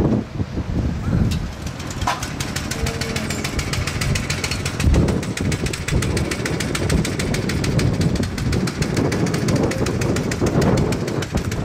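A machine running with a fast, even knocking over a low rumble, starting about two seconds in.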